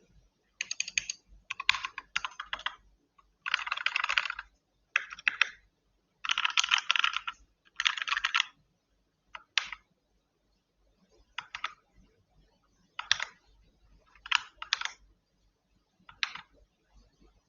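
Keys of a keyboard being typed on in bursts of rapid clicking, with longer runs in the first half and shorter, sparser clusters of keystrokes in the second half.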